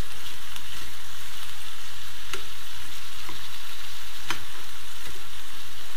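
Sliced bell peppers, carrot and onion sizzling steadily in oil in a frying pan while being stirred with a plastic spatula, which clicks against the pan twice. The water released by the peppers is cooking off, as the frying turns into stewing.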